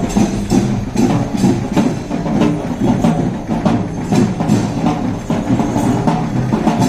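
Music with a steady percussive beat, about two to three strokes a second, over pitched instrumental notes.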